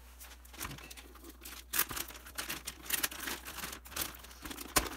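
Clear low-density polyethylene (PE-LD) plastic bag crinkling in irregular rustles and crackles as it is pulled off an oscilloscope.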